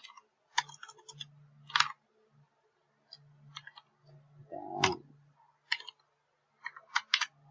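Computer keyboard keystrokes: scattered, irregular clicks in small clusters. Near the middle comes one louder, lower, brief sound.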